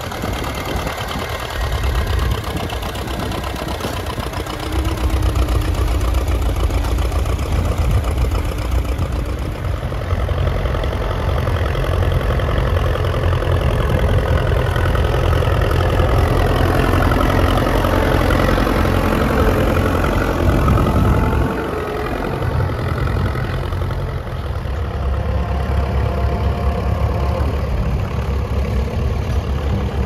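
Vintage tractor engine running steadily. It grows louder, stays strongest through the middle, then drops off sharply about two-thirds of the way through.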